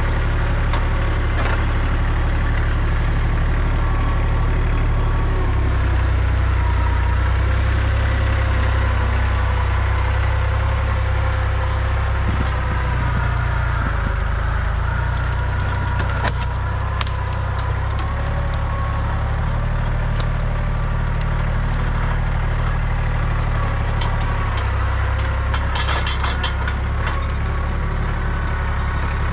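Kubota compact tractor's diesel engine running under load, its pitch shifting a couple of times as the front loader works the brush. Branches crack and snap in clusters about halfway through and again near the end.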